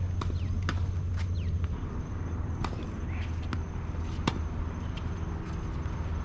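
Tennis rally on a hard court: sharp pops of racquets striking the ball and the ball bouncing, several in a few seconds, the loudest a near forehand hit about four seconds in. A steady low hum runs underneath.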